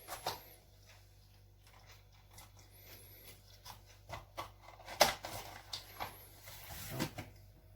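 Light clicks and knocks of kitchen utensils while milk is added to the batter bowl, with a sharper knock about five seconds in and another near seven. Faint high squeaks twice.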